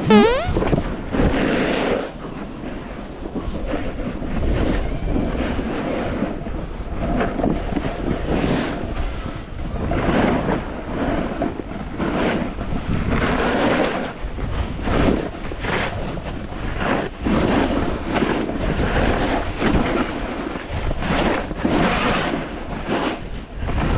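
Snowboard edges scraping over packed snow through a run of turns, the scrape swelling and fading with each turn, with wind buffeting the microphone. A brief rising glide sounds at the very start.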